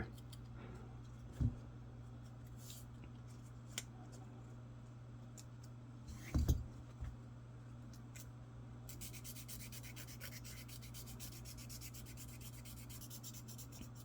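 Ultra-fine 1000-grit sandpaper, wrapped tight around a wooden dowel, rubbed back and forth over the edges of a steel lock pick to smooth its rough ridges. It makes a faint, fine scratching that becomes a dense, continuous rasp about nine seconds in, with a couple of soft knocks before that.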